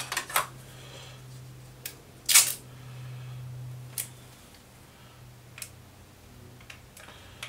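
Scattered light clicks and knocks of a screwdriver and a small circuit board being handled, with one louder clatter about two seconds in, over a low steady hum.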